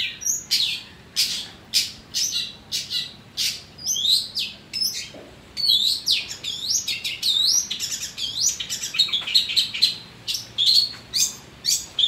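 Caged long-tailed shrike (cendet) singing a fast, varied run of short chirps, sharp clicks and rising whistled notes copied from other birds' calls, with barely a pause.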